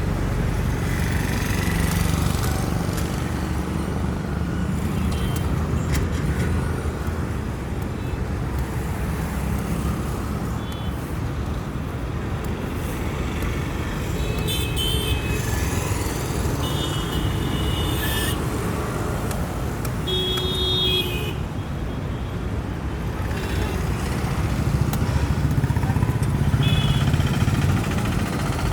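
Road traffic with motorcycles and cars running, and several short horn toots from about halfway through to near the end.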